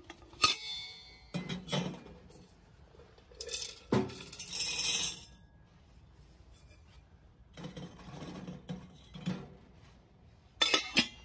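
Stainless-steel pieces clinking and knocking on a camp wood-pellet stove as a funnel is set on and taken off its top feed pipe, with a sharp ringing clink about half a second in. Between about four and five seconds a short rattling pour of wood pellets runs through the funnel into the stove.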